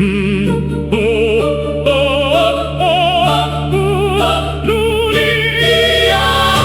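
Music: a singing voice with strong vibrato, its melody stepping up from note to note, over sustained low notes, in an operatic style.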